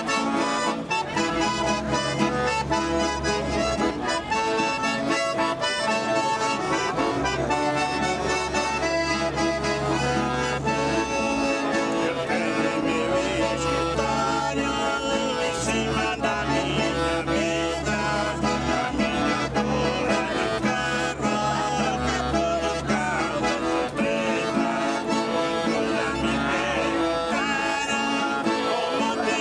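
Two accordions and an acoustic guitar playing a song together, with a man and a woman singing along partway through.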